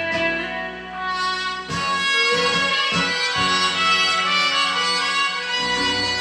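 Instrumental enka backing track playing the song's closing bars, with no singing; the band swells a little under two seconds in.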